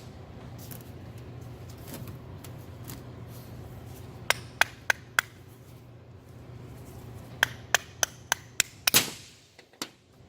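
Sharp taps and knocks on the metal parts of a truck EGR valve being worked apart by hand. There are four even taps about four seconds in, then a run of about six near eight seconds ending in a louder knock, and one more tap near the end.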